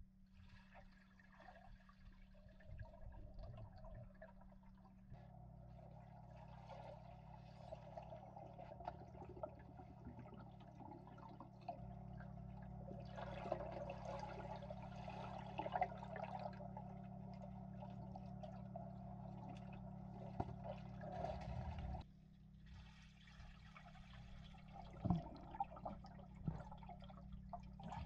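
Faint, muffled underwater sound of a swimming pool: water swishing over a steady low hum. The sound changes abruptly about three-quarters of the way through, and a couple of light knocks come near the end.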